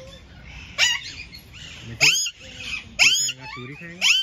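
Alexandrine parakeets screeching: four loud, harsh calls about a second apart, each rising and then dropping in pitch.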